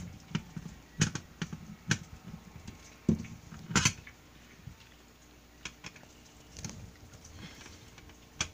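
Small screwdriver clicking and scraping on the screws of a floppy drive's metal cover as they are turned out: a scatter of sharp, light metallic clicks, the loudest about four seconds in.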